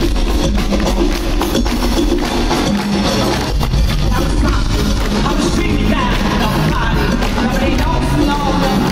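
Live band music played loud through an arena sound system, with a drum kit keeping a steady beat.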